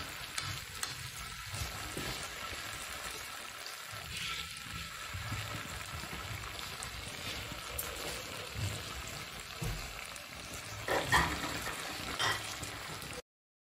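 Beef pieces sizzling and frying on a hot tawa griddle, a steady crackling hiss, with a metal spatula stirring and scraping them at first. A couple of louder knocks come near the end, and the sound cuts off abruptly just before the end.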